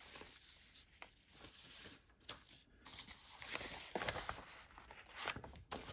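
Sheets of gel-printed paper being handled: faint rustling, crinkling and scratchy handling noises, busier in the second half.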